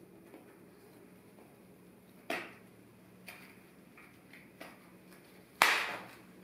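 Sharp clicks from cutting and snapping the wire stem of an artificial lamb's ear spray: one click about two seconds in, a few fainter ticks, and a loud snap near the end.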